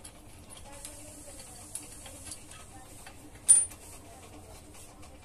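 Light metallic ticks and scrapes of an 8 mm box spanner working a nut loose on a rusty water pump casing, with one sharp metal clink about three and a half seconds in.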